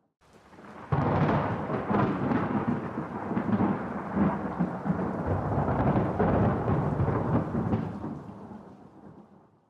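A thunderclap: a sudden loud crack about a second in, then a long rolling rumble that slowly dies away to near silence near the end.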